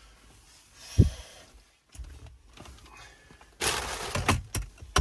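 Handling sounds inside a car cabin: a heavy thump about a second in, then a burst of crackling and clicking near the end.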